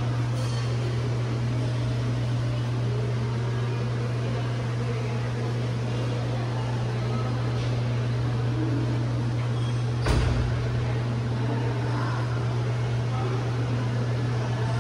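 A steady, loud low hum of machinery, with a single sharp click about ten seconds in.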